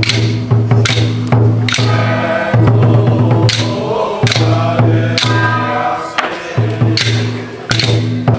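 Temple ritual music: sustained low chanting held on a steady pitch, with sharp percussion strikes about once a second.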